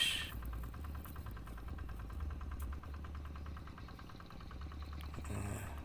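A steady low engine-like hum with a fast, even rattle over it, like a small engine idling.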